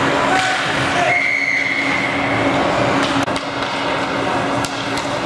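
Ice hockey game sounds: sharp clacks of sticks and puck and shouting voices over a steady low arena hum, with a high held tone lasting about a second and a half about a second in.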